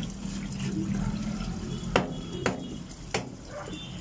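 Large kitchen knife knocking on a plastic cutting board three times while slicing milkfish, over a steady low hum.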